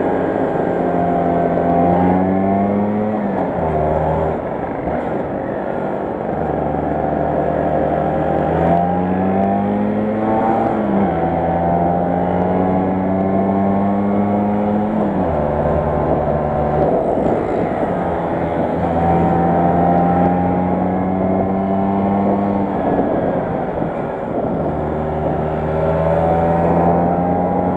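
Vespa 125 Super's single-cylinder two-stroke engine under way, heard from on board. Its pitch climbs and then drops several times as the rider works the throttle and gears, with steady stretches between.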